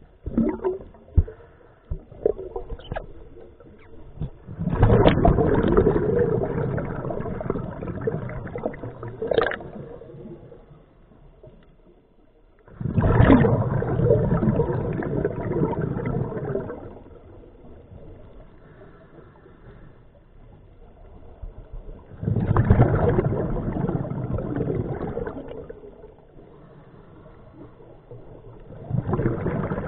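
Scuba diver breathing through a regulator underwater: each exhalation is a gurgling burst of bubbles lasting a few seconds, coming about every eight to nine seconds, with quieter inhalations between. A few sharp clicks or knocks in the first few seconds.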